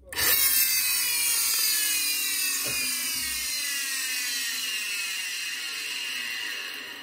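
Brushless flywheel motor of a DeWalt DCN692 cordless framing nailer running under battery power with a high, rough whine whose pitch drifts slowly down. The repairer suspects the motor's bearings are worn out.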